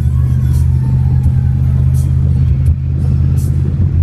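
A 1964 Chevrolet Impala SS running at a steady cruise, heard from inside the cabin as a constant low drone.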